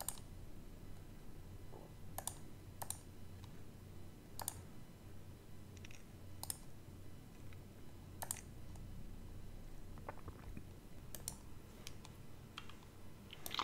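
Faint computer mouse clicks, about a dozen, sharp and irregular, a second or two apart, over a low steady hum.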